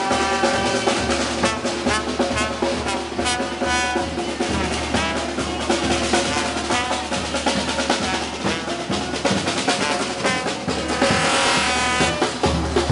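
Strolling band of snare drum and bass drum with saxophone and trombone playing, the drums beating in a busy, even rhythm under the horns.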